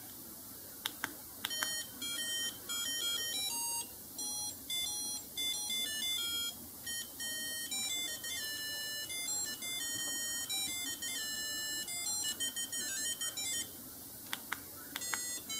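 BlackBerry 7230 ringtones playing through the phone's own speaker: a melody of quick, high-pitched electronic notes. Near the end it breaks off with a couple of clicks, then the next ringtone starts.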